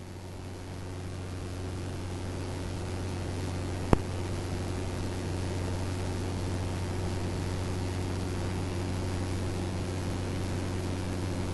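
Jabiru light aircraft's piston engine and propeller droning steadily, heard from inside the cockpit. It grows a little louder over the first couple of seconds, and a single sharp click comes about four seconds in.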